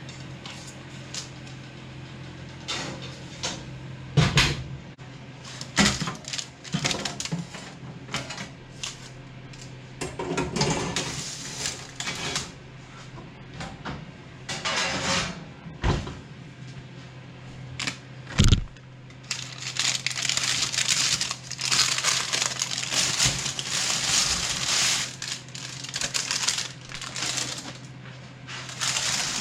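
Kitchen handling noises: scattered knocks and clicks of utensils and objects being set down, with two sharp loud knocks in the middle and a longer spell of hissy noise in the second half, over a steady low hum.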